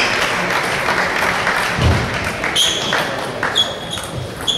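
Table tennis ball bounced on the table three or four times, each a sharp click with a short high ring, starting about halfway through. Before that comes a steady wash of hall noise and a dull thump about two seconds in.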